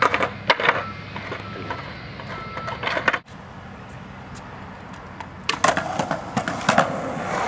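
Skateboard wheels rolling on pavement, starting about two-thirds of the way in, with a few sharp clacks of the board. Earlier there are a few scattered clicks, then a quiet stretch.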